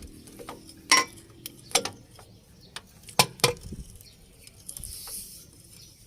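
A few sharp metallic clinks and knocks at uneven intervals, the loudest about a second in and a quick pair a little past three seconds.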